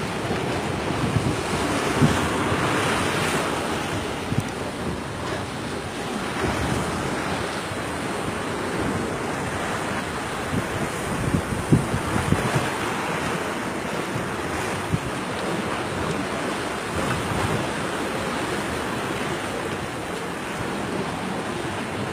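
Rough sea rushing and churning against the side of a wooden boat, with wind buffeting the microphone and a few short thumps.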